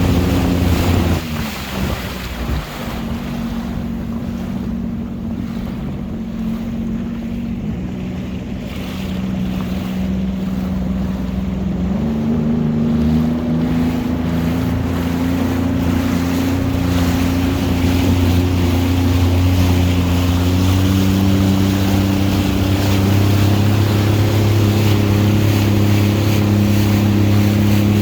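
Jet ski engine running over wind and water noise, easing off about a second in, then picking up again in steps around twelve and twenty seconds in.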